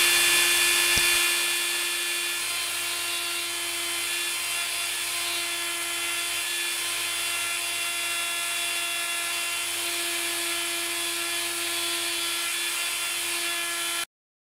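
Small handheld rotary tool running at high speed, a steady high-pitched whine as its bit engraves digits into a hardwood cutting board. It cuts off abruptly near the end.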